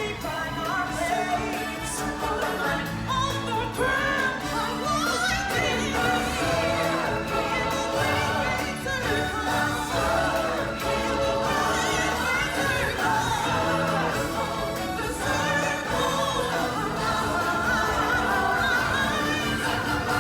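Music with singing: voices, including a choir, over instrumental backing.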